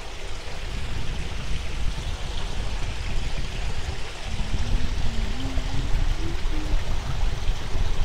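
Small garden waterfall splashing steadily into a koi pond, with wind rumbling on the microphone.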